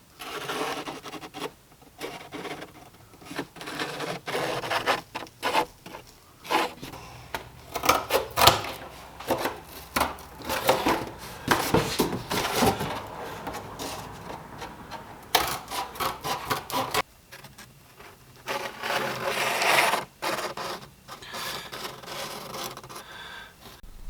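Hand work on a template: irregular rubbing and scraping with scattered knocks and taps as the template material is handled, shaped and fitted, with a short lull about two-thirds of the way through.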